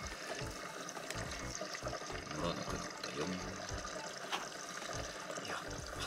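Washing machine draining: water running steadily through the drain hose and elbow into the floor drain trap, during a drain test of the freshly resealed trap.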